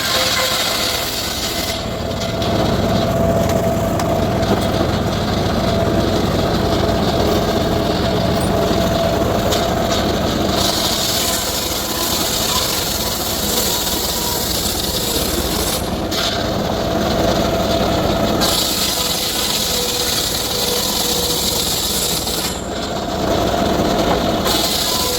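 Circular saw running and cutting teak wood, a continuous noisy whine whose brightness changes several times as the blade works through the wood.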